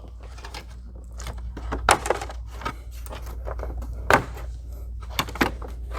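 Plastic engine cover being pulled up off its mounts and handled, with a few sharp clicks and knocks and some light rustling over a low steady hum.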